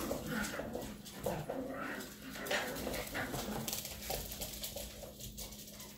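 A sick dog whimpering and whining in short high calls, heard through a laptop's speaker over a steady low electrical hum.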